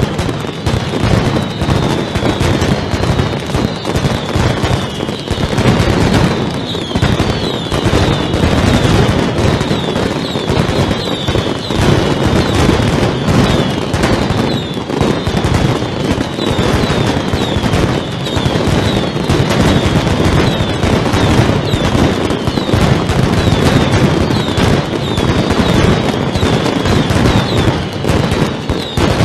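Mascletà: strings of masclet firecrackers hung on cords exploding in rapid, unbroken succession, a dense rattle of bangs, with short whistles falling in pitch over and over above it.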